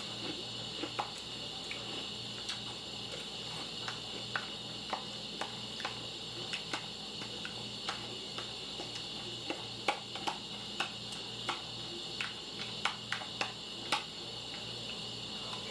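A person eating crunchy breakfast cereal: a string of short, sharp, irregular crunches and clicks, thicker and louder about ten to fourteen seconds in, over a steady electrical hum and hiss.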